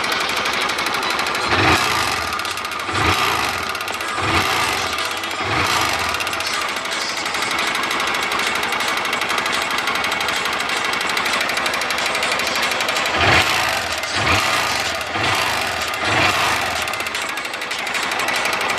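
Honda Titan 150's single-cylinder four-stroke engine running with a dense metallic rattle, revved in short blips, four early on and four more later. The knock is one the mechanic traces to the connecting rod, a small crackle from it.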